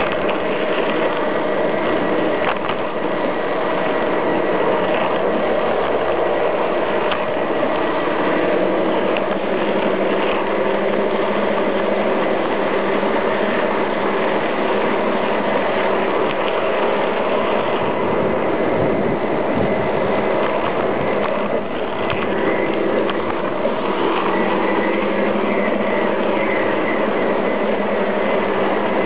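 Garden-railway model train running steadily along its track: a continuous mechanical whirr from its drive gearing and wheels on the rails.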